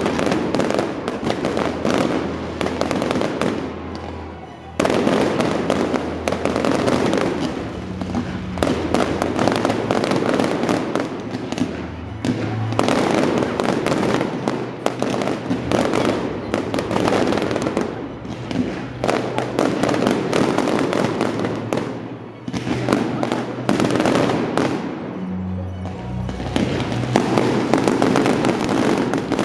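Stadium fireworks going off continuously: aerial shells and fountains making a dense, rapid crackling, with two short lulls before it surges back. Music with a shifting bass line plays underneath.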